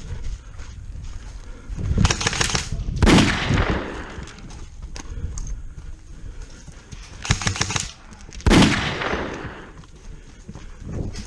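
Airsoft gunfire: two bursts of rapid shots, each followed by a louder sharp crack that rings out for about a second.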